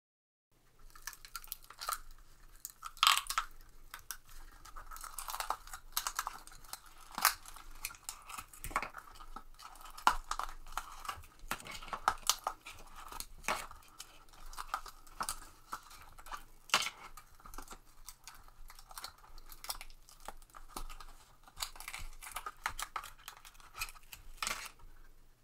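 Hardened epoxy resin being peeled and popped out of a silicone five-channel split pour cup: irregular crackling, snapping and peeling as the cured resin comes away from the flexed silicone.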